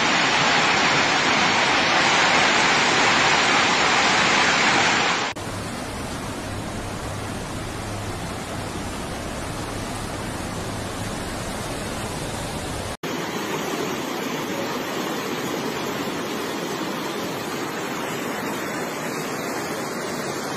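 Rushing floodwater from a dam break: a loud, steady rush of gushing white water for about five seconds, then, after an abrupt drop, a quieter steady rush of floodwater surging through streets.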